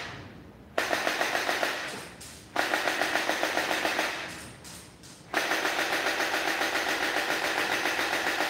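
Electric MP5K gel blaster firing on full-auto: three bursts of rapid shots over the whine of its motor. The first two bursts last just over a second each, and the third starts about five seconds in and is held for over three seconds.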